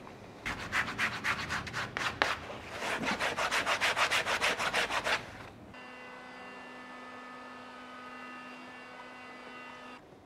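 Rapid back-and-forth hand-sanding strokes, about five a second, with a short break about two seconds in. The strokes stop abruptly after about five and a half seconds and are replaced by a steady electric hum with a thin whine above it.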